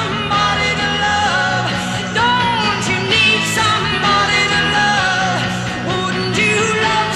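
Rock song with a singing voice over a steady bass line.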